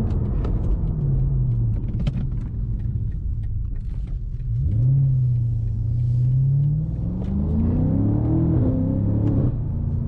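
BMW M5 Competition's twin-turbo V8 running under way. The engine note sinks and holds low, then from about seven seconds in climbs steadily as the car accelerates, and drops back just before the end.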